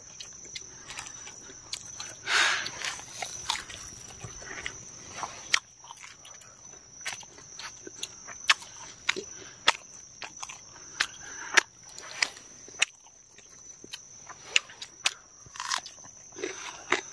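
Eating close to the microphone: irregular sharp clicks and crunches of chewing and handling food, over a steady high-pitched drone of insects such as crickets or cicadas.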